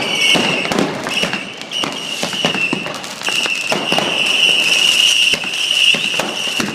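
Many fireworks and firecrackers going off all around, a dense run of bangs and crackles. A high whistle sounds over them through much of it, strongest in the second half.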